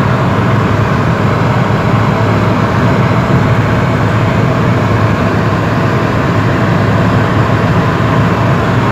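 Tuned Volkswagen Golf R (Mk7) with its 2.0-litre turbocharged four-cylinder, driving at a steady pace: a loud, even low rumble of engine and road noise with no revving.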